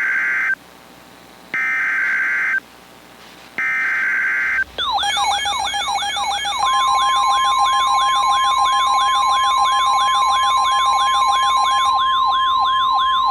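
Emergency Alert System header: three one-second bursts of screeching digital data tones, about a second apart. Then the alert signal begins, a siren-like warble sweeping up and down about three times a second, joined about two seconds later by a steady single tone.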